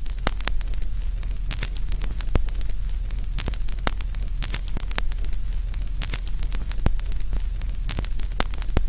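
Crackling, sparking burn sound effect: a steady hiss over a low rumble, broken by frequent sharp crackles and pops.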